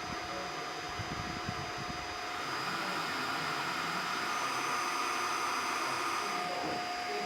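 1/12-scale RC hydraulic excavator's hydraulic pump running, a steady mechanical whir with a thin whine. It gets a little louder about two and a half seconds in and eases off again near the end.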